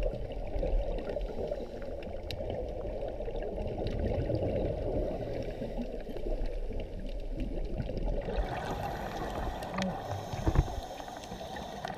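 Muffled underwater ambience from scuba divers' dive: a low, steady rush with scattered faint clicks. It turns brighter and hissier from about eight seconds in.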